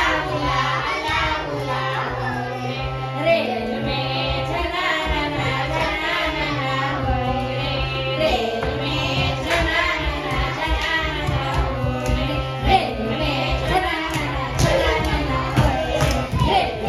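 Children's action song (kritigeet) about a train: child voices singing over a repeating bass line and light percussion.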